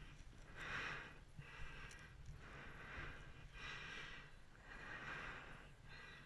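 A tree climber breathing hard, several loud breaths in and out about a second apart, over a faint low rumble.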